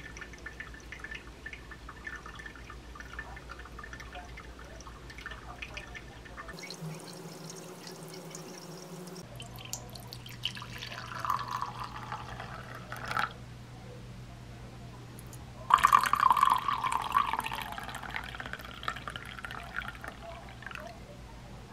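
Brewed coffee poured from a glass server into two ceramic mugs, one after the other, the second pour the louder. Before that, a soft trickle of hot water from a gooseneck kettle onto coffee grounds in a paper-filter dripper.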